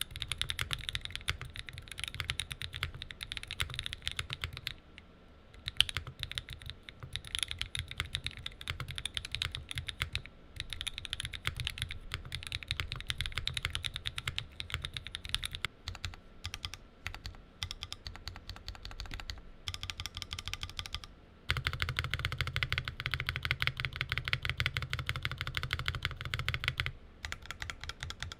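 Typing on a Mode Envoy mechanical keyboard with soldered Obscura linear switches (58 g bottom-out), with the Envoy foam kit fitted. Key presses in fast runs with brief pauses, growing busier and louder from about 21 seconds in.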